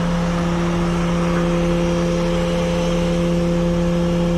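A vehicle engine idling steadily, a constant hum with a low rumble beneath it.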